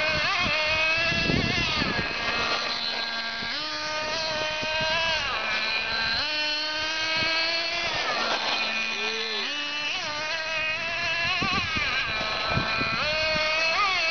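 Small radio-controlled truck's motor running hard, its pitch rising and falling again and again as it speeds up and slows down on the road.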